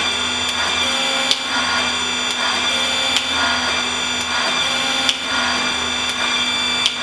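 Hydraulic pump running steadily with a hum, driving a square drive hydraulic torque wrench through its cycles, with sharp clicks about once a second.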